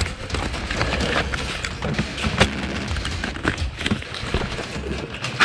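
Irregular sharp clicks and knocks of an airsoft game in progress, scattered shots and hits at uneven intervals, over a rustling of gear and foliage.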